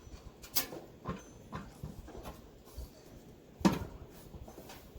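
Scattered clicks and knocks of grill parts and tools being handled during assembly, with one sharp knock about three and a half seconds in.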